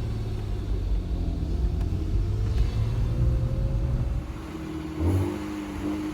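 Ford Probe GT's 2.5-litre V6 pulling under load, its pitch rising slowly for about four seconds, then dropping off. A short knock comes about five seconds in. This is typical of the driveline skip and clunk that the owner suspects is in the transmission.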